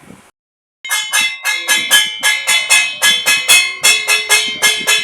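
Music of quick, bell-like struck notes at about four a second, starting abruptly after a short dead silence.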